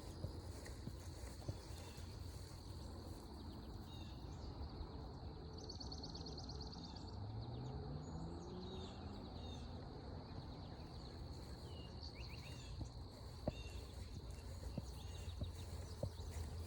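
Footsteps on a forest trail under a steady high insect drone, with scattered short bird chirps and a quick rattling trill about six seconds in. A faint low tone rises in pitch around seven seconds in.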